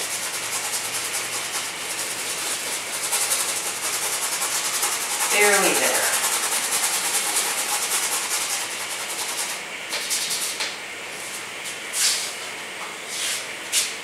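Dry paintbrush scrubbing acrylic paint onto stretched canvas in quick, repeated strokes, thinning to a few separate strokes over the last few seconds. A short falling voice sound comes about five seconds in.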